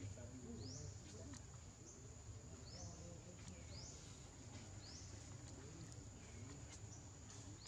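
Faint natural ambience: short rising bird chirps every second or two over a steady high insect drone and a low rumble.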